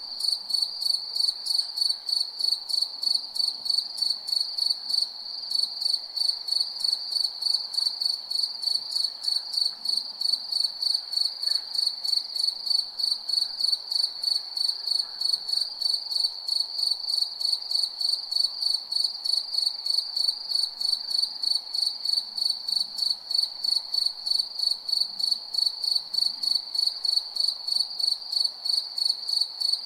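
Cricket chirping continuously: a high, shrill tone pulsing in rapid, evenly spaced chirps, over a faint steady background hiss.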